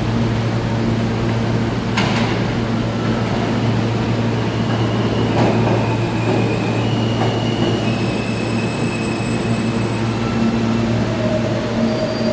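R160 subway train pulling into the station, its wheels squealing in high thin tones that shift in pitch from about four seconds in, over a steady low hum. A sharp click about two seconds in.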